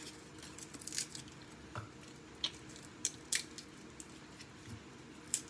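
Quiet kitchen handling: about half a dozen faint, scattered small clicks and taps over a low steady hum.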